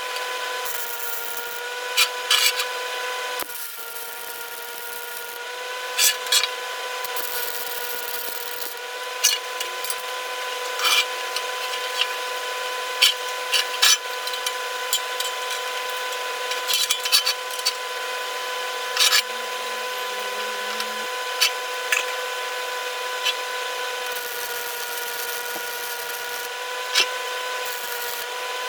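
An electric power tool running steadily with a constant high whine that dips slightly in pitch twice in the first few seconds, with irregular sharp clicks and scrapes throughout.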